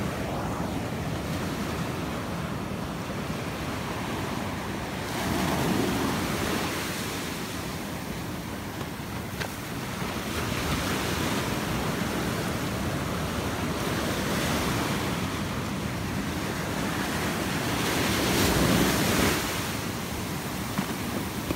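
Ocean surf breaking and washing up the beach in a steady rush, swelling louder about five seconds in and again near the end as bigger waves run in.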